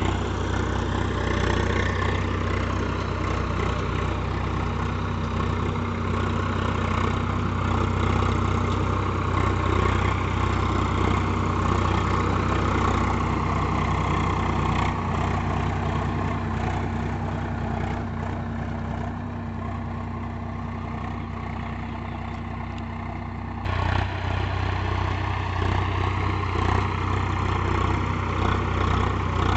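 Swaraj 744 XT tractor's three-cylinder diesel engine running steadily under load while pulling a cultivator through the soil. The sound eases a little past the middle, then comes back louder suddenly about four-fifths of the way through.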